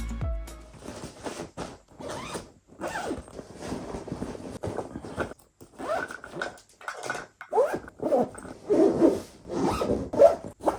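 An irregular run of short rasping scrapes and rustles, like handling noise, each lasting a fraction of a second, with the louder ones clustered in the second half.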